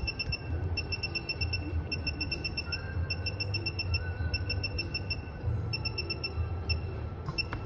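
Rapid short electronic beeps, about eight a second in runs of several with short gaps, over a steady low hum.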